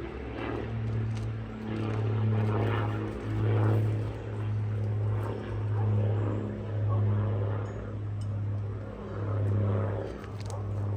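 A steady low mechanical drone, swelling and fading about every second, with a few faint taps.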